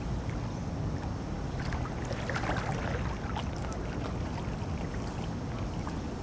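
Steady low rumble of wind buffeting the microphone beside choppy lake water, with a few faint light ticks around two to three seconds in.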